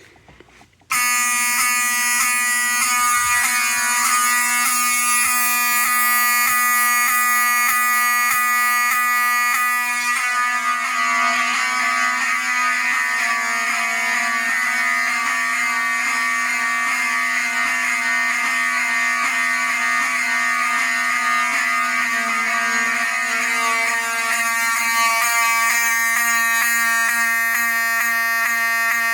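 Wheelock 7001T and 7002T mechanical horn strobes sounding together on continuous after a pull station is pulled: a loud, buzzing alarm horn tone that starts suddenly about a second in. It has a fast regular pulsing for the first ten seconds or so, then holds steady.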